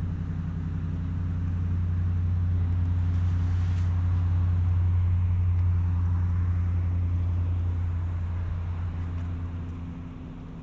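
A motor vehicle engine running with a steady low hum. It grows louder toward the middle and fades away near the end.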